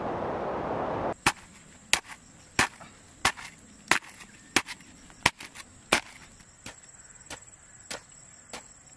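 A long-handled spade chopping into dry, grassy soil in a steady rhythm, about three strikes every two seconds. The first strikes are sharp and loud, and the later ones are fainter. A steady high insect trill runs underneath, and a steady wind-like rush fills the first second before cutting off.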